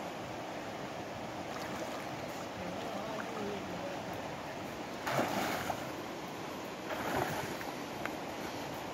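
Steady rush of river water, with two short bursts of splashing about five and seven seconds in as a man wades and draws in a cast net.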